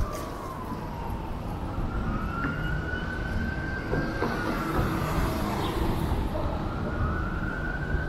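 Emergency vehicle siren wailing, its pitch sliding slowly up and down about once every four seconds, over a steady low rumble of street traffic.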